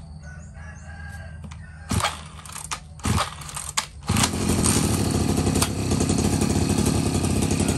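Shindaiwa S231 backpack pole saw's small two-stroke engine idling, with a few sharp clicks, then revving up suddenly about four seconds in and running at high speed as the throttle cable is pulled by hand, the clutch engaging to drive the chain.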